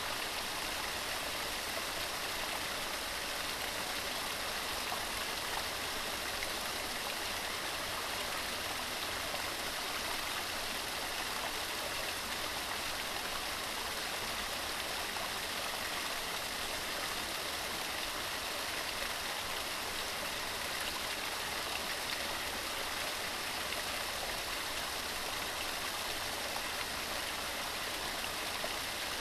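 Waterfall: falling water rushing at a steady level, with no breaks or changes.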